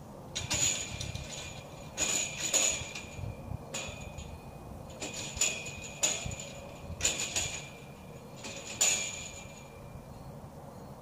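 Irregular metal-on-metal knocks and clinks on the steel tubing of a greenhouse hoop frame, about ten strikes, each leaving a short ringing tone. The strikes stop near the end.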